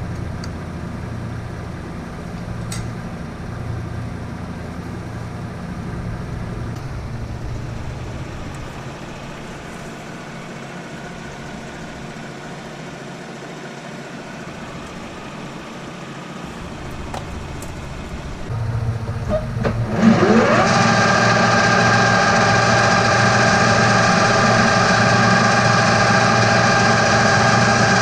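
Metal lathe running with a steady machine hum, then about two-thirds of the way through spinning up with a quick rising whine and settling into a louder, steady running tone.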